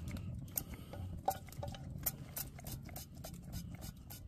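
Scattered light clicks and knocks of a frying pan and cooking gear being handled over a campfire, over a low steady rumble.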